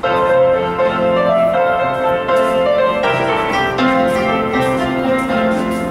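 Piano music playing, a steady run of held notes.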